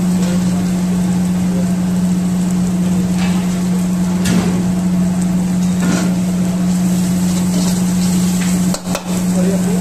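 Spices and masala frying in oil in a large wok, stirred with a metal ladle: a sizzle with a few scattered knocks and scrapes of the ladle against the pan, over a steady low hum.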